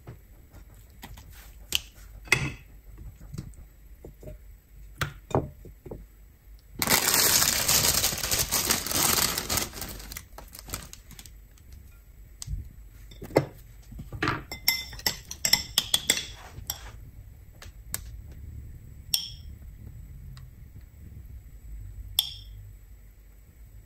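Food being plated into a ceramic bowl: scattered clinks and knocks of tongs and a spoon against the bowl, with a cluster of quick clinks in the middle and two ringing clinks near the end. A loud, rough hiss lasting about three seconds comes about a third of the way in.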